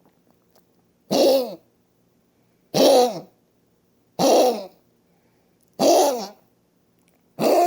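Female Maltese dog coughing five times, about one cough every second and a half, each cough short with a falling pitch. It is a cardiac cough from end-stage chronic mitral valve insufficiency with heart failure.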